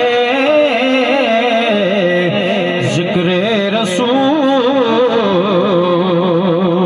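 Devotional salaam (naat) sung by a single voice over a loudspeaker sound system, drawn out in long, wavering, ornamented notes. Two brief clicks come about three and four seconds in.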